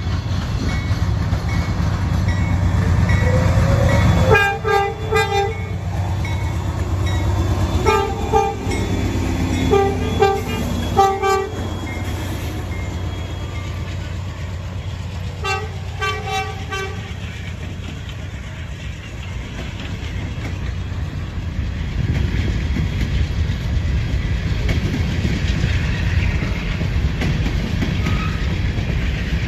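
Norfolk Southern freight train's diesel locomotives passing with a steady heavy rumble, the lead unit's air horn sounding a series of blasts, long and short, between about four and seventeen seconds in. Toward the end the rumble of the rolling hopper cars swells.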